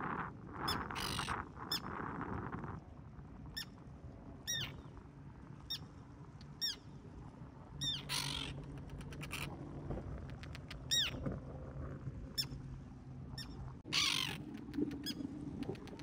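Terns giving repeated sharp alarm calls, each falling in pitch, as they dive at an intruder near their nest with eggs. This is nest defence. Wind rumbles on the microphone in the first few seconds.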